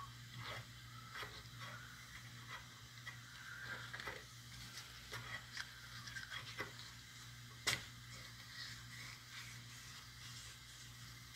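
Faint scratchy strokes of emery cloth rubbed by hand on a cast-iron clutch slave cylinder, a stroke every half second or so, with one sharper click a little past halfway.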